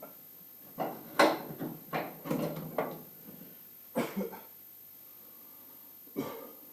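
Irregular knocks and rattles of stiff gear-shifter cables being tugged and worked free from a tight spot in the car body. A quick cluster of knocks comes about a second in, then single knocks near four and six seconds.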